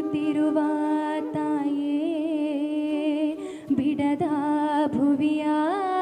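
Woman singing solo and unaccompanied into a handheld microphone: long held notes with a wavering vibrato, broken by short breaths between phrases.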